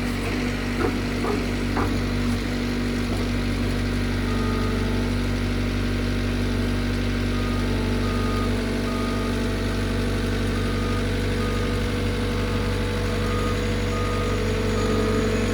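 A John Deere 325G compact track loader's diesel engine runs steadily. From about four seconds in, its back-up alarm beeps about once a second as the machine reverses. A few light knocks come in the first couple of seconds.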